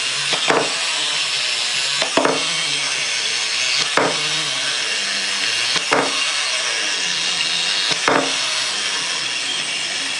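Wind-up toys walking on a table, their clockwork running with a steady whirr, and a sharp knock about every two seconds.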